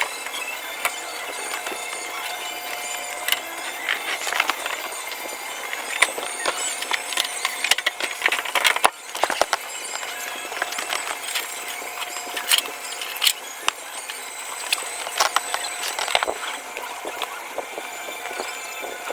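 Scattered clicks and light knocks of computer parts being handled, over a steady hiss.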